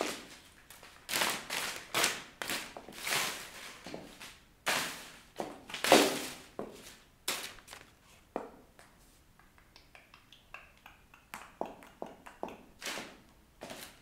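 High-heeled shoes stepping on, crumpling and tearing sheets of paper on a tiled floor: a quick run of crunching, rustling paper sounds, the loudest about six seconds in. After about eight seconds it thins to lighter taps and small rustles, with a few more crunches near the end.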